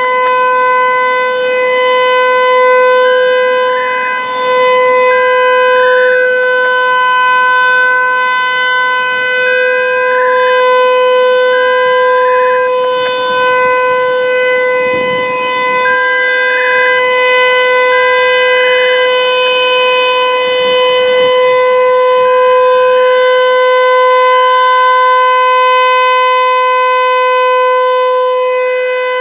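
American Signal Corporation T-135 electromechanical outdoor warning siren sounding the full alert signal: a loud, steady, unbroken tone held at one pitch throughout.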